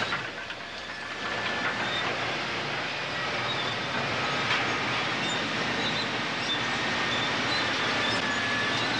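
Tracked bulldozer at work: its engine running steadily while the steel tracks clank, with high squeals coming and going, as the blade pushes through rock and earth.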